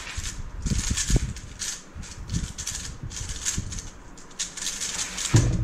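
A 3x3 speedcube being turned fast by hand: quick, irregular clicking of the layers, broken by short pauses, with a thump near the end.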